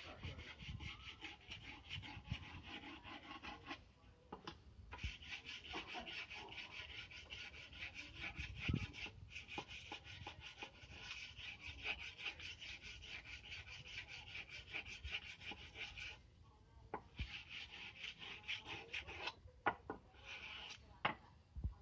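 Steel billhook blade being sharpened by hand with rapid back-and-forth scraping strokes. The strokes stop briefly about four seconds in and twice more in the second half.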